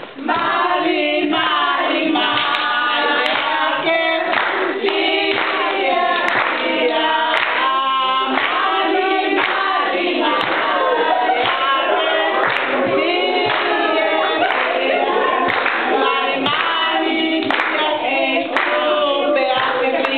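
A group of women singing together in parts, with hand clapping along.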